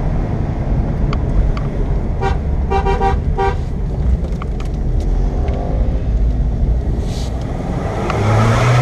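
Car engine and road noise heard inside the cabin on a mountain climb. A car horn gives several short toots about two to three and a half seconds in, and a deeper engine note swells near the end.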